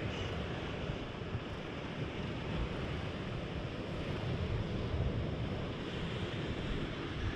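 Wind blowing across the microphone: a steady rushing noise with low buffeting.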